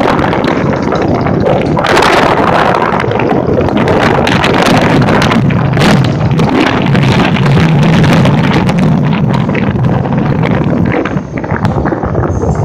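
Royal Enfield Bullet's single-cylinder engine running as the motorcycle rides a bumpy dirt track, heard under heavy wind buffeting on the microphone, with frequent short knocks and rattles from the ride. The sound dips briefly near the end.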